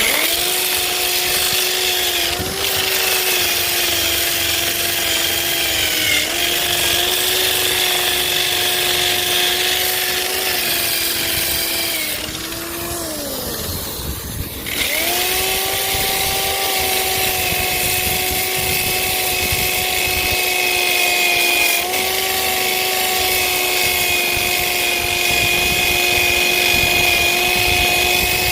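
Old Craftsman electric sander running with a grinding wheel, grinding rust off a steel anchor: a steady motor whine over a rasping grind. About twelve seconds in the motor winds down and almost stops, then it starts up again and keeps grinding.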